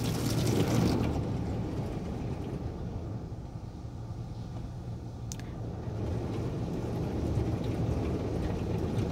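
LaserWash 360 touchless automatic car wash spraying water over the car, heard from inside the cabin. There is a hiss of spray on the glass in the first second, then a steady low rumble of spray and wash machinery, with one faint click about five seconds in.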